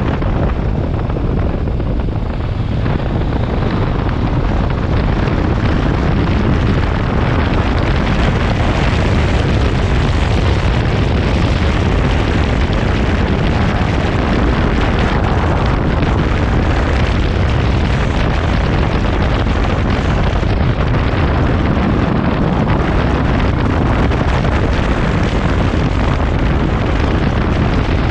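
Wind buffeting the microphone of a moving motorcycle at about 50 to 70 km/h, a loud, steady rush heaviest in the low end, with the bike's engine and tyre noise underneath.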